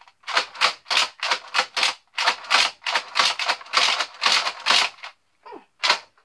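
Nerf Raider CS-35 pump-action foam-dart blaster being handled and worked: a quick run of hard plastic clicks and rattles, about three or four a second, then a short pause and one last click near the end.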